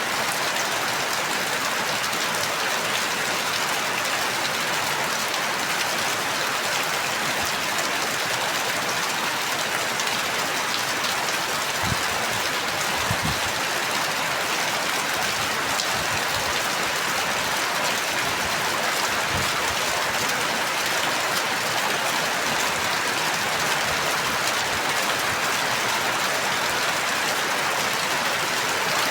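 Steady rain falling, an even hiss with no let-up. A few faint low knocks sound near the middle.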